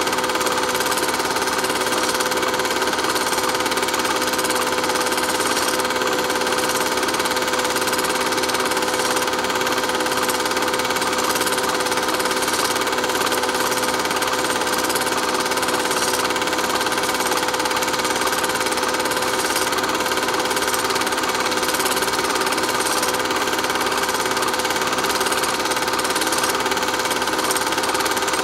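Steady mechanical whirring with a constant hum that does not change.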